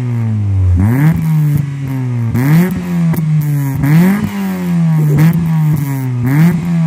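Toyota Starlet engine being revved in short throttle blips, five in a row about every second and a half. Each time the pitch rises quickly, then falls back to idle.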